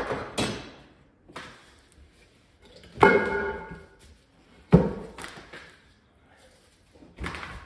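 Irregular thumps and knocks as a large tire is forced by hand onto an aluminum beadlock wheel resting on a sheet-metal plate. One clank about three seconds in rings briefly with a metallic tone, and a heavy thud follows nearly two seconds later.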